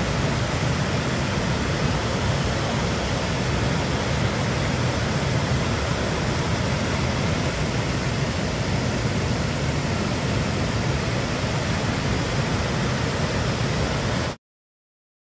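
Large waterfall in high flow after heavy rain, a steady rush of white water pouring over rock ledges. It cuts off suddenly about a second before the end.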